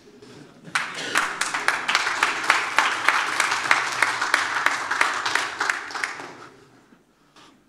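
Audience applauding in a hall. The clapping starts about a second in and dies away near the end.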